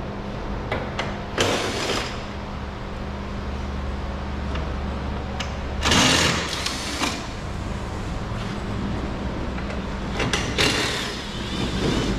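Short bursts of tool-and-parts noise from work on the car's headlamp, three of them, the middle one the loudest, with scattered clicks between, over a steady low hum.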